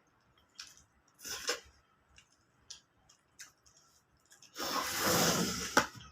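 Close-miked eating sounds: a few short, wet chewing and smacking noises, then a loud rush of noise lasting about a second and a half near the end that ends in a sharp click.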